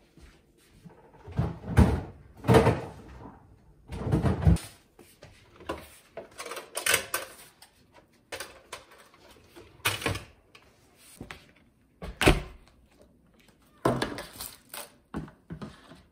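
Kitchen handling sounds: an irregular series of knocks, thuds and short clatters as things are moved and set down, the loudest thuds in the first few seconds.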